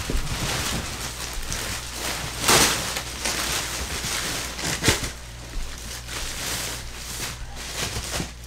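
Thin clear plastic wrapping being pulled off a mattress, crinkling and rustling throughout, with louder rustles about two and a half and five seconds in.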